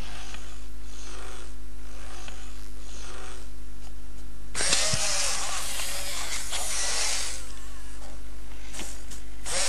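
i-Cybie robot dog's leg servo motors and gears whirring in short repeated bursts, their pitch rising and falling as the joints move, louder and busier from about halfway in. A steady low hum runs underneath.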